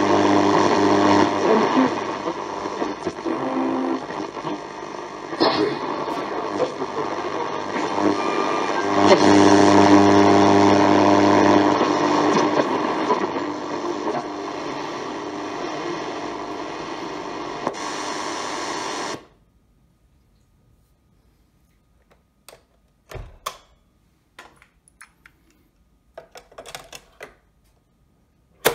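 Toshiba RT-2580L radio cassette recorder playing a radio broadcast through its own speaker, a mix of music and voice, while its side knob is turned. The radio cuts off suddenly about two-thirds of the way through, leaving a few faint handling clicks and then a sharp plastic click near the end as the cassette compartment is worked.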